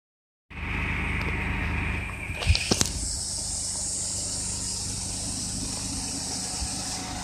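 Suzuki Twin's small three-cylinder engine idling steadily with a fan hissing over it. A few sharp clicks come about two and a half seconds in, and the hiss then shifts higher in pitch.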